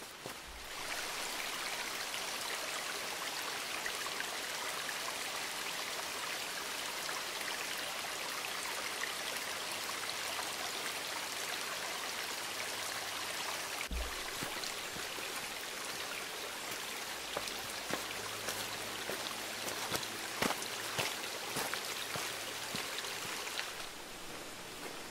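A small rocky mountain creek running over stones, a steady rushing of water that drops away suddenly near the end.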